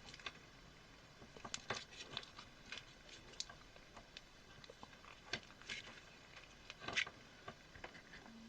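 Faint, irregular clicks and scrapes of small plastic and rubber parts being handled and pried during disassembly of a soldering iron's handle, with the sharpest click about seven seconds in.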